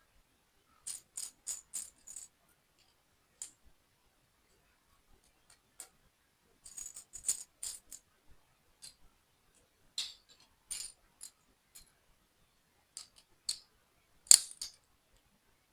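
Small plastic toy building pieces clicking and rattling against each other as they are handled, in short clusters of sharp clicks with pauses between; the loudest cluster comes near the end.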